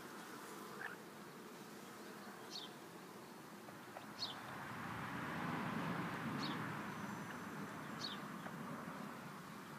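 Young chicks peeping: single short, high, falling cheeps every second or two. Under them a faint broad hum swells and fades in the middle.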